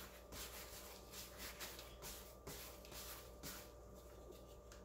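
Faint, rhythmic swishing of a hand rubbing schnapps into the hard crust of a smoked pork loin, about two or three strokes a second.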